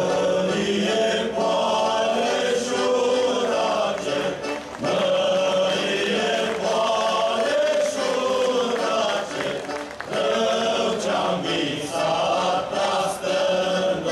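A group of voices singing a Romanian folk song together, in long phrases with short breaks about five and ten seconds in.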